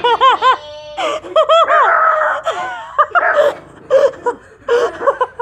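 A dog giving quick, high-pitched barks and yips, mixed with a person's laughter.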